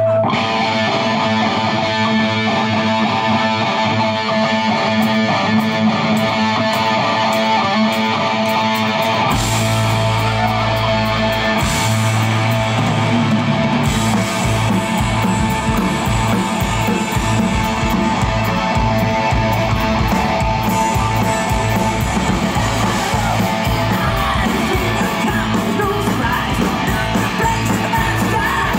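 Live heavy metal band playing loud: electric guitars, bass and drums. The deep bass comes in about a third of the way through, and a fast, even drum beat drives the second half. Heard from within the audience.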